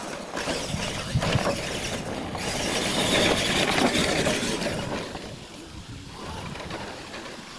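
Radio-controlled monster trucks racing over dirt, their motors and geartrains running, loudest about three to four seconds in and fading after about five seconds.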